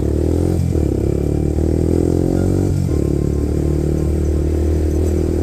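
Motorcycle engine pulling away and accelerating, its pitch climbing and dipping briefly twice, about two-thirds of a second in and near three seconds in, as it shifts up through the gears.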